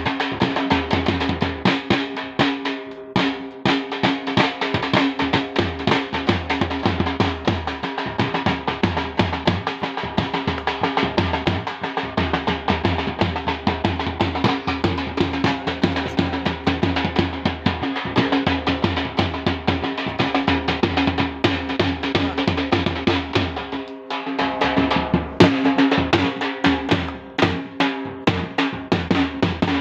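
Dhol, a large double-headed barrel drum, beaten with sticks in a fast, continuous rhythm, with a couple of brief breaks.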